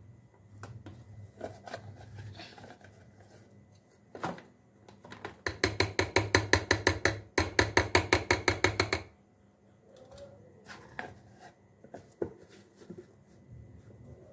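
A rapid, even run of sharp mechanical clicks, about eight a second, lasting some three and a half seconds with a short break in the middle, amid scattered knocks and clinks.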